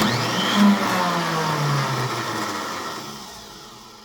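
Snowblower electric starter motor spinning up with a whir, then winding down with falling pitch and fading over about four seconds without turning the engine over. Its pinion gear teeth are worn down, so it does not catch the flywheel.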